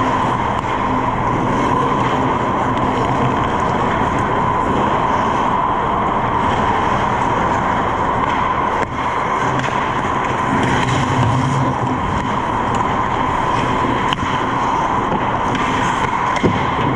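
Steady hum and hiss of an indoor ice rink during play, with skate blades scraping the ice and a few sharp knocks.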